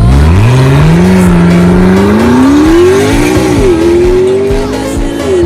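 McLaren P1's twin-turbo V8 accelerating hard, its pitch climbing steadily through the revs, with a quick upshift about three and a half seconds in before it climbs again.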